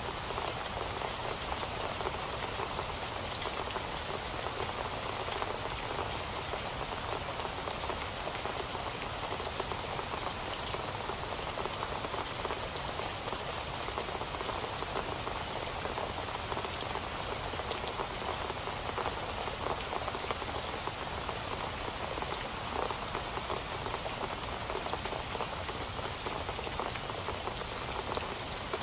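Steady rain falling, a continuous patter of many drops striking a surface, without a break or change.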